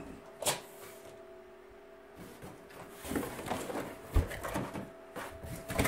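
Cardboard packaging being handled: a sharp tap about half a second in, then from about two seconds on, scraping and rustling as cardboard inserts are pulled out of a shipping box, with a dull thump a little after the middle. A faint steady hum underneath.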